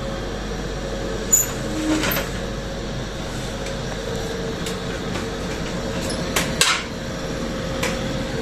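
Split air conditioner indoor unit running with an abnormal noise from its fan motor: a steady hum and whirr with a few sharp clicks, twice close together about six seconds in. The noise is later traced to the fan motor's bearing, which has gone bad.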